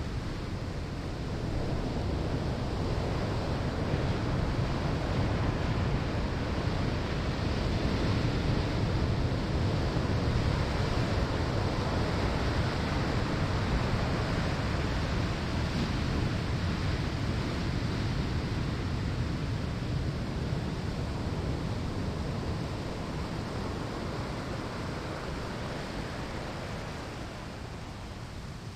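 Ocean waves breaking on a sandy shore: a continuous rushing wash of surf that swells over the first few seconds, holds, then slowly eases toward the end.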